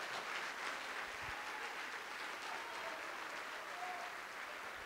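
Church congregation applauding together, a steady, fairly faint clapping.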